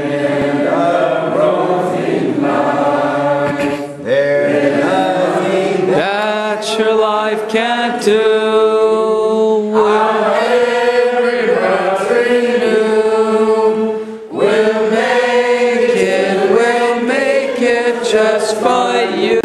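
A congregation singing together with many voices, holding long notes in phrases with brief breaks between them.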